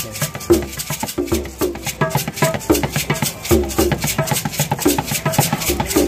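Hand percussion played loosely: a small frame drum struck in deep thumps about every half second, over a dense rattling and clacking of wooden percussion.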